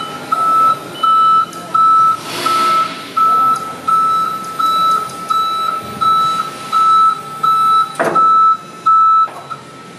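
A reversing-type warning alarm beeping steadily in a single tone, about three beeps every two seconds, stopping shortly before the end. A burst of hiss rises over it about two and a half seconds in, and a sharp knock sounds about eight seconds in.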